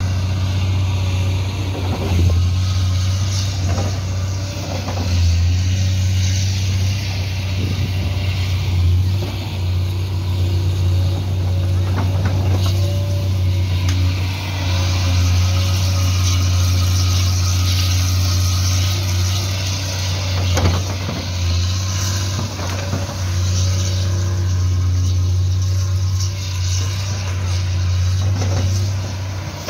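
Hydraulic excavator's diesel engine running steadily with a deep, even hum, broken by a few short knocks.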